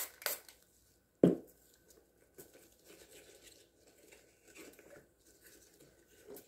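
A pump spray bottle gives two last quick spritzes, then one sharp knock about a second in, followed by faint rustling of gloved hands handling a silicone mould.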